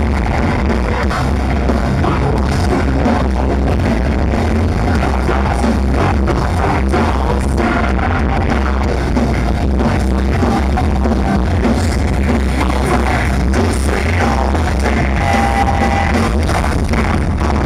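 Live metalcore band playing at full volume: distorted guitars, bass and drums, with vocalists singing into microphones over them.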